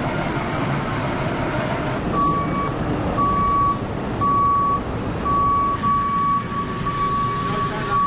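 JCB 532-70 telehandler's diesel engine running as it reverses, with its reversing alarm beeping steadily about once a second from about two seconds in.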